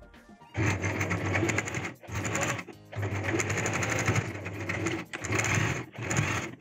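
Stitch Magic electric sewing machine stitching through gathered fabric, in several short runs separated by brief stops as the seam is guided.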